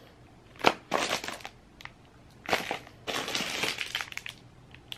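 Plastic packaging crinkling and crackling as packs of lashes are handled, in several short bursts with a sharp crackle about a second in.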